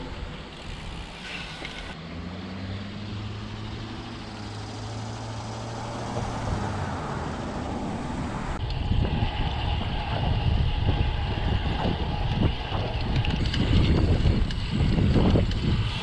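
Wind buffeting an action camera's microphone on a moving road bicycle, with tyre and road noise. A low steady hum runs through the first few seconds. About halfway through, the wind rumble turns gusty and grows louder.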